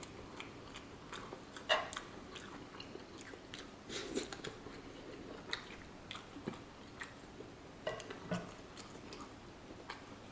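A person chewing a mouthful of pepper steak rice with canned corn close to the microphone, with irregular small crunches and wet clicks.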